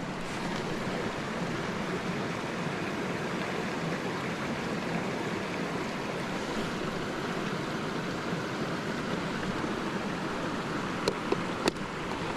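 A small trout stream running over rocks close by: a steady rush of flowing water. A few short, sharp clicks come near the end.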